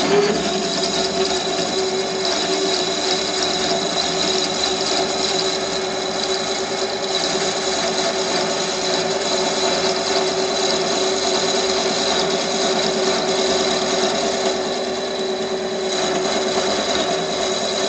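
Small lathe running steadily with a constant whine, cutting a part as it is parted off; the sound eases slightly for a moment near the end.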